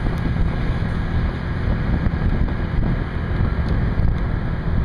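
Wind buffeting the microphone of a moving motor scooter, a steady rush heavy in the lows, mixed with the scooter's engine and road noise.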